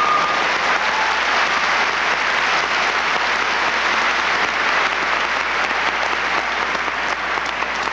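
Large audience applauding steadily, slowly easing off toward the end.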